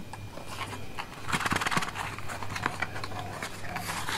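A long cardboard box being opened by hand: the end flap is pulled open, with crackling and scraping of paper and cardboard and a few light knocks as the box is handled.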